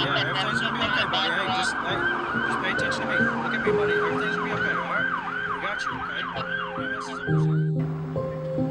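Emergency vehicle siren on a fast yelp, rising and falling about three times a second, cutting off suddenly near the end. Slow held notes of background music come in underneath about halfway through.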